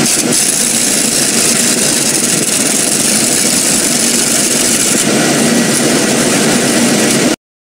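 Engine of a bucket truck running steadily, with a loud hiss over it; the sound cuts off abruptly near the end.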